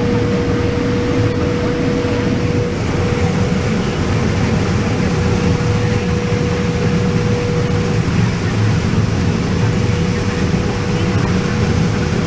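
Combine harvester running steadily while harvesting corn, heard from inside the cab: a constant low drone, with a thin steady whine over it that stops about eight seconds in.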